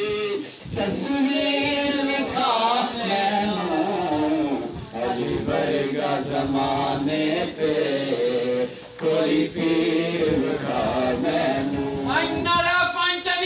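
Men's voices chanting a manqabat, a Sufi devotional song in praise of Ali, sung without instruments. A higher, brighter voice comes in near the end.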